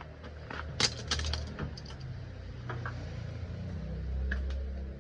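Metal tools and parts clinking and rattling as they are handled in the car's engine bay, with a sharp clink about a second in. A steady low rumble runs underneath and grows louder near the end.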